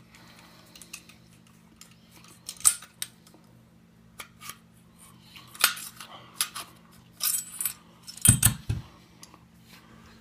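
Metal clinking, clicking and scraping as an AR-15's A2 front sight gas block is worked back and forth to slide it off the barrel. Irregular sharp knocks come throughout, with a couple of heavier thumps near the end.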